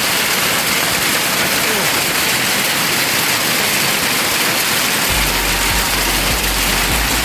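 Hailstorm: hail and rain pelting down in a dense, steady patter. A low rumble joins about five seconds in.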